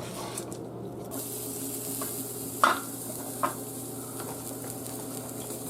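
Steady sizzling from a pot of veal braising on the stove. It starts about a second in, and two sharp knocks come about halfway through, the first the louder.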